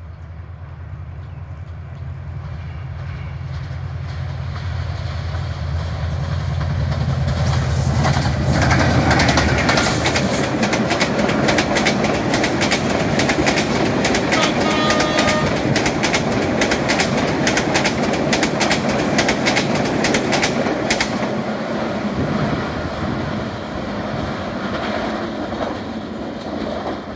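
Diesel-electric locomotive of an express passenger train approaching with a low engine drone that grows louder, passing about eight seconds in. Then the coaches rush past with a rapid clickety-clack of wheels over rail joints, with a short tone about halfway through, easing off as the train draws away.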